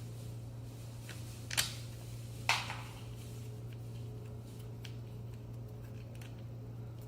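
Two sharp clicks about a second apart from parts being handled during reassembly, with a few fainter ticks, over a steady low hum.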